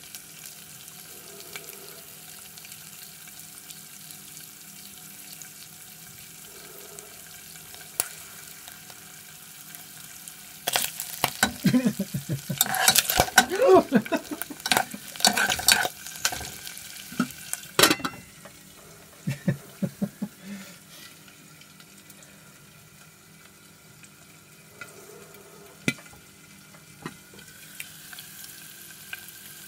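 Wood ear mushrooms frying in hot oil in a saucepan, with a steady sizzle. About a third of the way in they start spitting and popping loudly, with a dense run of sharp pops for several seconds. The pops thin out to a few scattered ones as the pan settles back to sizzling.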